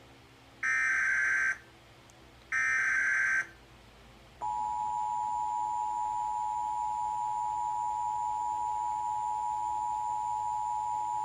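Emergency Alert System tones on TV: two one-second bursts of SAME header data tones, then the steady two-tone EAS attention signal. The attention signal starts about four seconds in and holds unchanged.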